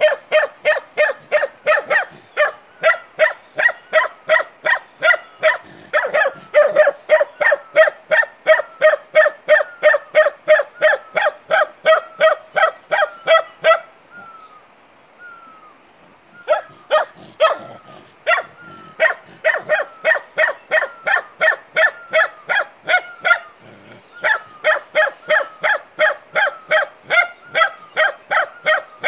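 Bakarwal puppy barking in a rapid, steady series of high barks, about three a second, broken by a lull of about two seconds midway with a few faint short calls before the barking starts again.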